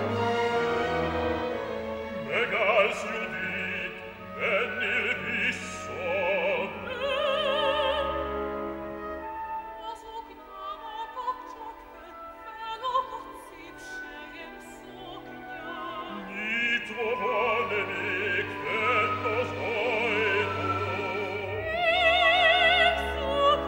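Opera singing in Hungarian over an orchestra: a soprano sings a phrase with wide vibrato, the orchestra thins and softens in the middle, then a bass-baritone answers with another phrase.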